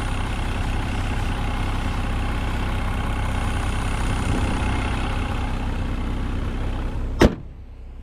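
Range Rover Sport's engine idling steadily with the hood open. Near the end comes a single sharp thump as the hood is shut, and the engine sound then drops and is muffled.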